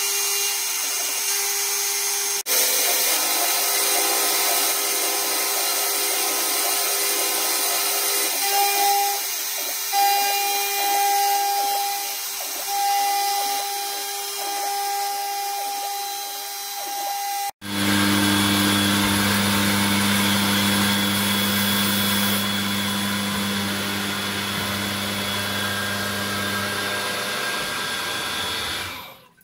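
A CNC milling machine's spindle and end mill cutting aluminium: a steady machine whine with cutting noise, with a compressed-air blow gun used at the cutter to clear chips. About two-thirds of the way through, the sound changes abruptly to a lower steady hum of a different cut, and it fades out at the very end.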